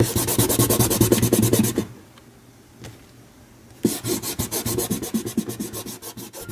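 Eraser rubbed rapidly back and forth over drawing paper, lifting the pencil lines from under an inked drawing. Two spells of quick scrubbing strokes with a pause of about two seconds between them.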